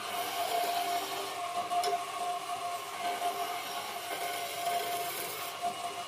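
Wood lathe running with a steady whine while a flat-bladed turning tool cuts into the spinning wood blank, the shavings scraping and hissing off the cut.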